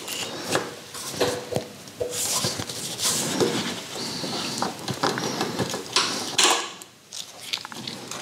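Irregular metallic clicks, clinks and short scrapes as an exhaust clamp and slip-on silencer are handled and worked into place.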